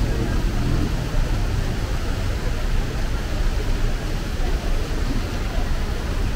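Steady low rumble of dense, slow-moving city traffic, car engines idling and creeping.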